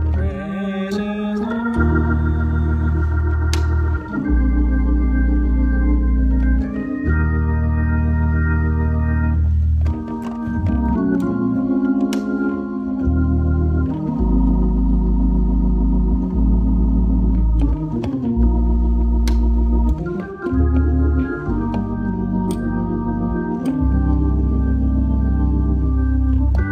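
Organ played solo in a gospel style: full chords held and changed every second or two over deep, sustained bass notes played on the foot pedals.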